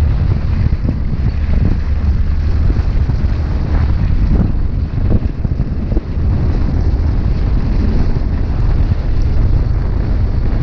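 Strong wind buffeting the microphone: a steady, heavy low rumble.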